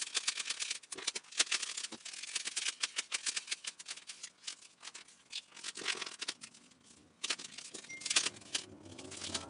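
Paper dollar bills being counted by hand, a rapid run of crisp flicks and rustles as the notes are leafed through, easing off briefly about seven seconds in.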